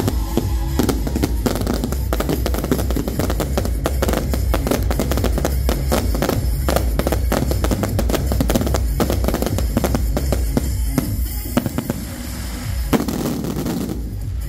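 Aerial fireworks going off in rapid succession, a dense crackle of pops and bangs from gold crackling shells, over background music with a steady low bass. Near the end the crackle thins briefly and one sharp bang stands out.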